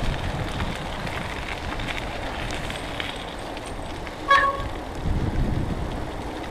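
Wind buffeting the microphone and the rumble of a bicycle riding along a wet towpath. About four seconds in comes one short, clear toot.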